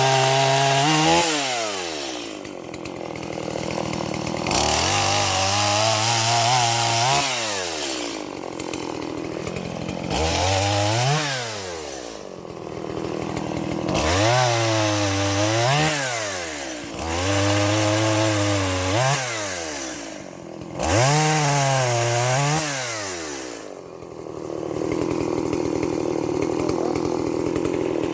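Stihl MS170 two-stroke chainsaw engine revved up and held about six times, dropping back toward idle between each, then running steadily at a lower speed for the last few seconds.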